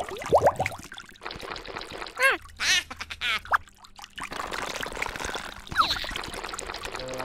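Liquid pouring and trickling as cooking foley, with several short squeaky chirps and sliding pitches in the first half.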